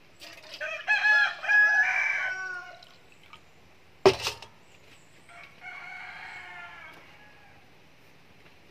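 A rooster crows loudly for about two and a half seconds. About four seconds in comes one sharp knock as a metal basin is set down on a wooden table, followed by a fainter crow.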